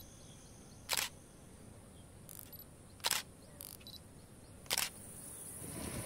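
Camera shutter clicks, three of them about two seconds apart.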